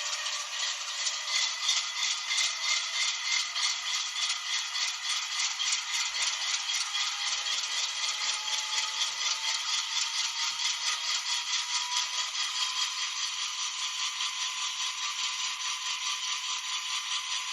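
Sound decoder of an N scale ScaleTrains GE C44-9W model locomotive playing its diesel startup sequence through its tiny speaker. It gives a tinny, rapidly pulsing engine sound with no bass, its pitch creeping up over the first dozen seconds as the engine comes up to speed.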